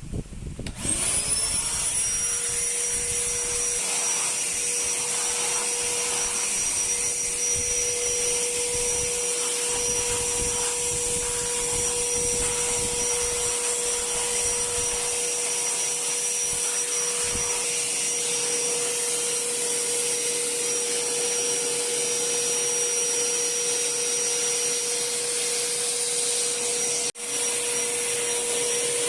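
INGCO 1200W wet-and-dry vacuum cleaner switched on about a second in, its motor spinning up to a steady high whine. It then runs while the dry-surface floor nozzle is worked over a carpet, sucking up dust. The sound drops out for an instant near the end.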